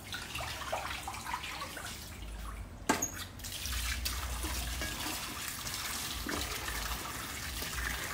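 Tap water running into a sink while something is rinsed by hand, with one sharp knock about three seconds in; the water runs louder after it.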